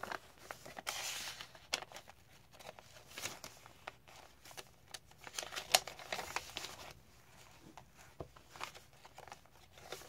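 Paper and cardstock rustling and crinkling as the pages, tags and envelope of a handmade junk journal are handled and flipped, with scattered sharp paper flaps and taps.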